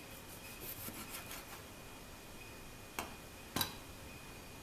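Chef's knife sawing through a small tomato on a plastic cutting board: a quick run of scraping strokes, then two sharp knocks of the knife on the board, the second the louder.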